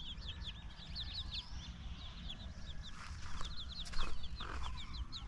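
A flock of small birds chirping in quick, high, repeated chirps over a steady low rumble, with a brief louder noise about four seconds in.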